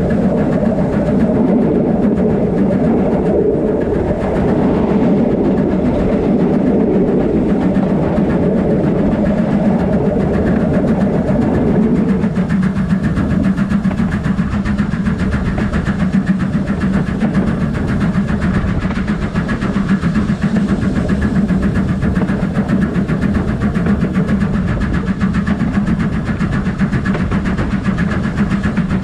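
BR Standard Class 5 steam locomotive 73156 running while hauling its train, heard on board the engine: a loud, steady running noise. The mid-pitched part of the noise eases about twelve seconds in.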